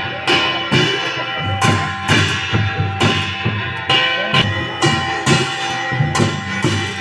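Traditional hill folk music: drums struck in a steady rhythm, about two beats a second, under a sustained wind instrument holding steady notes.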